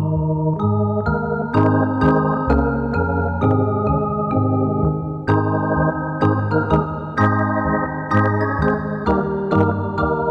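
Organ music played in held chords, the chord changing about every second with a crisp attack at each change.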